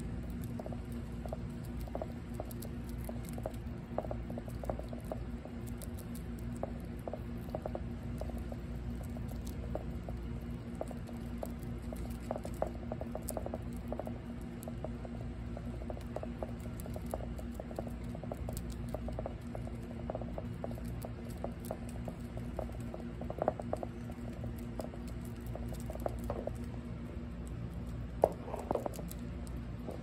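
Gray squirrels chewing and nibbling fresh green leaves: many small, quick crunches and clicks, a few louder ones late on, over a steady low hum.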